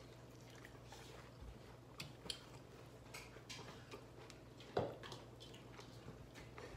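Quiet eating sounds at a table: scattered small clicks and taps from mouths, fingers and dishes, the loudest a little under five seconds in, over a faint steady low hum.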